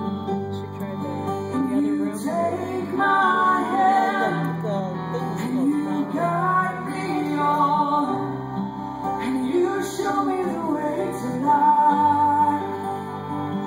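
A woman singing lead in a worship song, backed by a live band with electric guitars.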